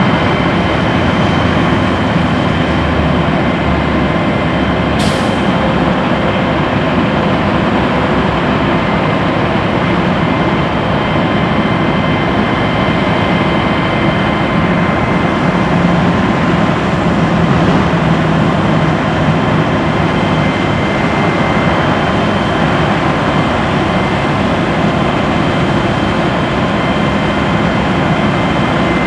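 Cat C13 diesel engine of a Freightliner M2 bucket truck running steadily while the boom hydraulics work, with faint steady high tones over the engine noise. A brief click about five seconds in.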